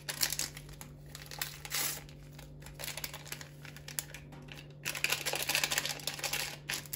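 Paper sachets of baking powder crinkling and rustling in the hands as they are handled and emptied into a bowl, in irregular bursts with the longest stretch near the end.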